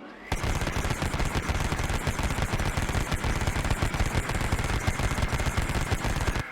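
Vulcan rotary Gatling gun firing one long, continuous burst, its shots so rapid they run together into a buzz. A brief rising whine of the barrels spinning up leads in, and the fire cuts off abruptly near the end, leaving a fading whine.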